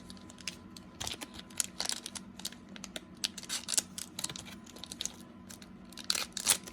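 Cellophane trading-card pack wrapper crinkling and crackling as it is handled and opened, in short irregular snaps, loudest just before the end.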